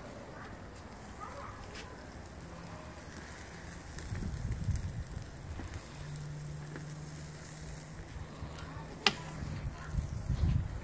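Faint sizzling and crackling of meat cooking over a charcoal kettle grill, with low wind rumble on the microphone. A low steady hum comes in for a few seconds in the middle, and there is one sharp click near the end.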